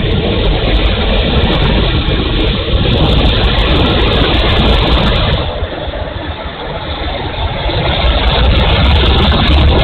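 Onboard sound of a small electric RC Hawker Hurricane model's motor and propeller under power during the takeoff roll and climb, mixed with heavy wind rush on the wing-mounted camera's microphone. The noise dips a little about halfway through and then builds again.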